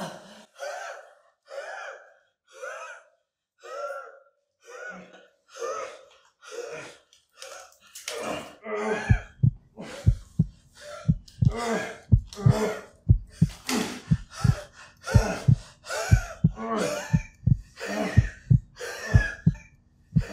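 A person gasping and panting hard in short, ragged breaths, about one every second at first. From about eight seconds in the gasps come faster and louder, each paired with a deep thud, over a low steady tone.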